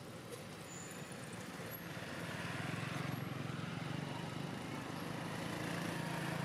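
Motor vehicle engine running, a low steady hum that grows louder from about two seconds in.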